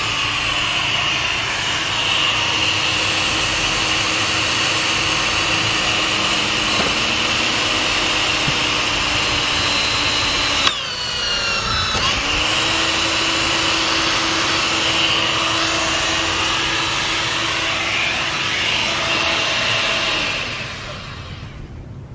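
An old corded electric drill running steadily with a high whine. Its trigger is let go about halfway and it winds down, then spins back up a second later and runs on until it stops near the end.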